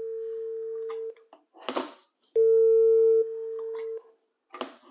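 GSM fixed wireless desk phone playing a steady dial tone that cuts off about a second in. After a click it comes back louder, drops back after under a second, and stops about four seconds in. A few clicks and knocks from the buttons and handset follow near the end.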